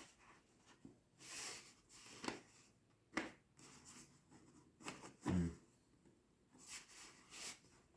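Fingers prying at a tight, magnet-held hatch on a foam RC plane fuselage: scattered soft scrapes and clicks, with a low thump about five seconds in. The hatch does not come off.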